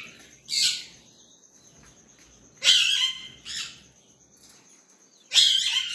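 Caged small parrots giving shrill, harsh screeching calls in four bursts, the longest near the middle and at the end.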